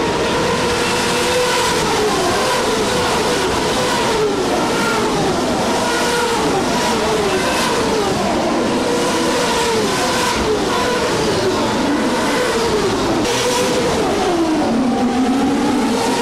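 Several IndyCars' turbocharged V8 engines racing past one after another, their overlapping engine notes rising and falling without a break.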